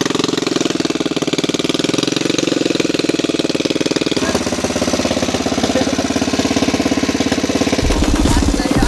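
Royal Enfield Bullet 350's single-cylinder engine running with a steady, even firing beat. The sound gets fuller and deeper about four seconds in and again near the end.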